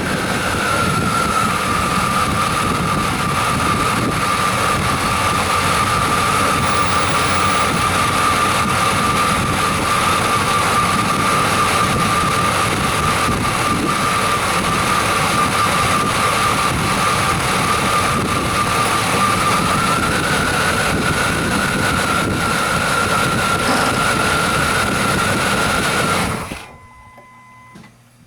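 1994 Chevy Silverado's 350 V8 running, a steady loud hiss with a high whine that rises slightly about twenty seconds in. The sound cuts off suddenly near the end.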